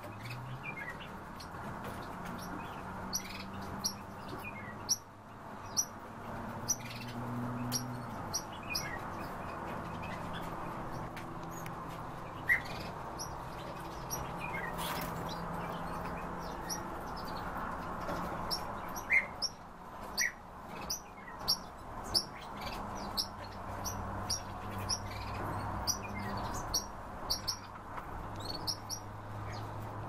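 Small cage birds in an aviary chirping: many short, sharp, high calls, one after another, over a low steady background hum.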